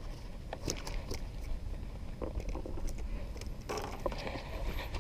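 Scattered, irregular clicks and short rustles of handling, with a denser rustle a little before the end, over a steady low rumble.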